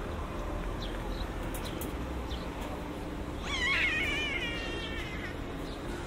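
A drawn-out, wavering animal cry with a slightly falling pitch, starting about three and a half seconds in and lasting almost two seconds. Under it run a steady low outdoor rumble and a few short high chirps.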